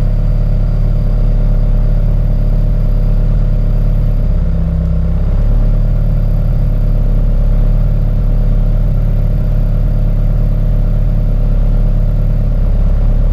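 Turbocharged Honda Integra engine idling steadily, with a brief change in its note a little before the middle.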